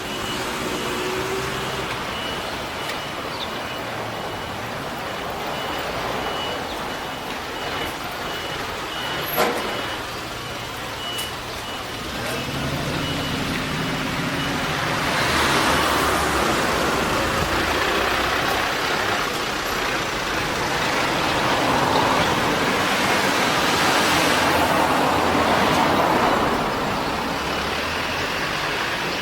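A level-crossing warning signal beeps in an even rhythm over passing traffic. About halfway through, a loud rushing train passes over the crossing, swelling twice before it fades.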